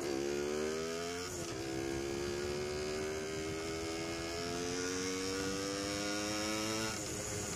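Hodaka Wombat's 125 cc two-stroke single-cylinder engine pulling the bike along the road, its pitch climbing steadily as it accelerates and dropping at gear shifts, once about a second in and again near the end.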